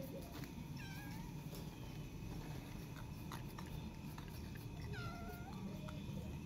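A cat meowing twice: a short meow about a second in, then a longer one about five seconds in whose pitch rises and falls. A few faint clicks fall between them.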